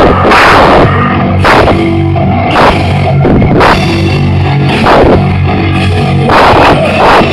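Live djent metal band playing: heavily distorted guitars and bass over a drum kit, with crashing cymbal hits about once a second. The recording is very loud and overdriven.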